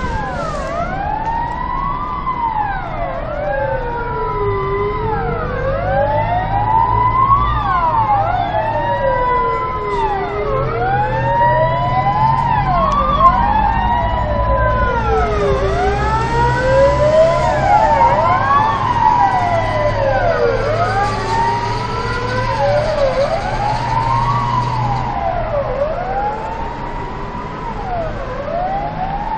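Several fire engine sirens wailing together, each rising and falling slowly over a few seconds and out of step with the others, over the low rumble of the trucks' engines.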